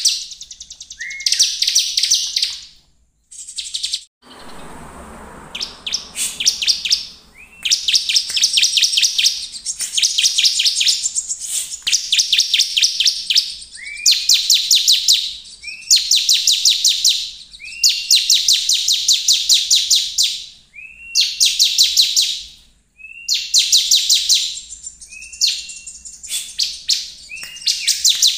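Bar-winged prinia (ciblek) in full song: each phrase opens with a short rising note and breaks into a fast, buzzy trill of rapidly repeated notes, phrase after phrase about every two seconds. A short burst of noise comes about four to six seconds in.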